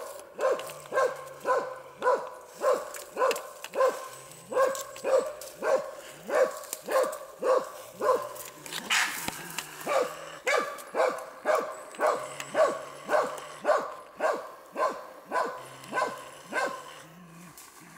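Hunting dog barking steadily in a fast regular rhythm of about two barks a second, the sound of a dog baying at a wild boar. The barking breaks off briefly about halfway through and stops near the end.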